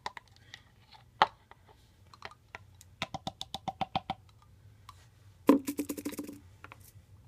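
Small plastic clicks and taps from handling a tub of ready-mixed Manic Panic hair dye and a plastic bowl: a single sharp click about a second in, a quick run of clicks a little later, and a denser clattering burst near the end.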